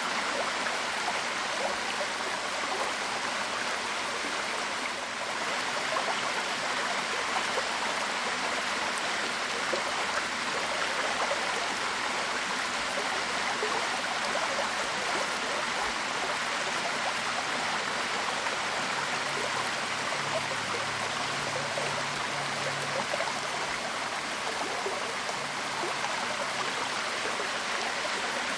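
Waterfall: falling water rushing and splashing steadily, without a break.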